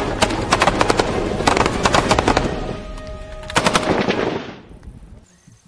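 Several Kalashnikov assault rifles firing together, a rapid run of overlapping shots. It breaks off about two and a half seconds in, resumes for a short burst about a second later, and dies away near five seconds in.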